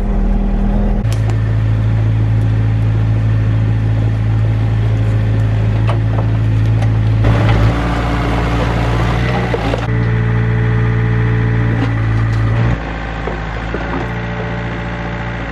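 Takeuchi TB153 mini excavator's diesel engine running steadily, with a few seconds of louder clatter about halfway through.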